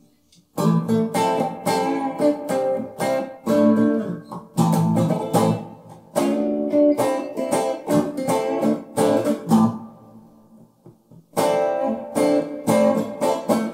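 Single-coil electric guitar playing strummed chords through a Hughes & Kettner Tubemeister 36 valve amp on its crunch channel. The amp's gain is set low, with a little drive added from a floor pedal. The chords pause for about a second and a half near the end, then start again.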